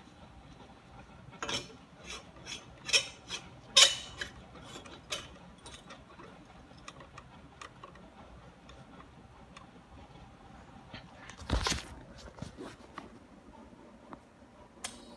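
Sparse, irregular clicks and clatters, the loudest about four seconds in, with a longer crackling burst about twelve seconds in and one more sharp click near the end.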